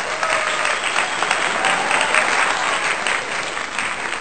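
Crowd applause: dense, steady clapping from many hands.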